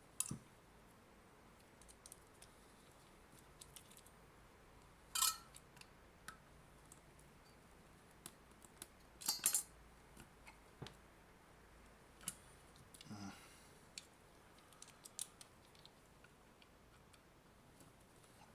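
Scattered clicks and scrapes of a tool working at the sealed seam of a plastic AC adapter case, with two louder sharp clicks about five and nine seconds in.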